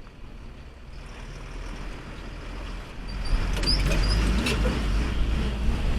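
A vehicle approaching on the road and passing close, its engine and tyre noise growing and loudest from about three seconds in.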